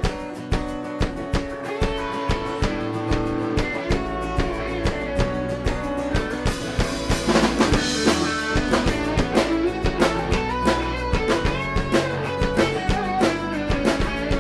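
Live rock band playing an instrumental intro: a steady drum-kit beat with guitar, the low end filling in about four seconds in and the playing getting busier about halfway through.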